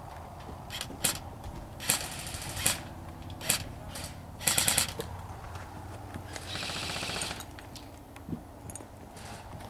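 Airsoft guns firing: a few single sharp shots and short bursts of rapid fire, with the loudest burst about halfway through and a fainter, longer burst a couple of seconds later.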